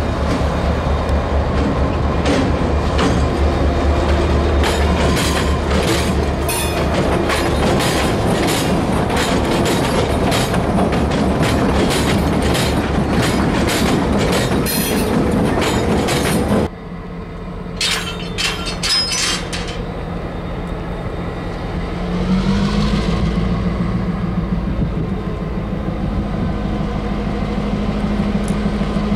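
Diesel locomotives rolling past with engine rumble, their wheels clacking rapidly over rail joints and switch points. This stops abruptly partway through. After that a locomotive's diesel engine runs steadily, with a few clicks, and its pitch rises and holds a little later as the throttle comes up.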